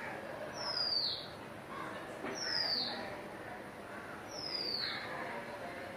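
A bird calling repeatedly: a single high whistle falling in pitch, about every two seconds, three times.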